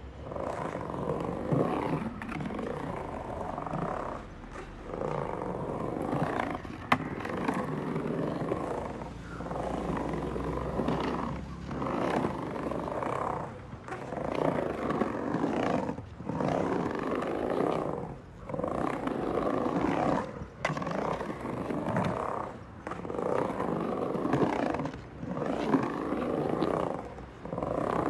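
Skateboard wheels rolling on a concrete skatepark ramp, the rumble swelling and dropping away about every two seconds as the skater rides back and forth between the walls. One sharp clack about seven seconds in.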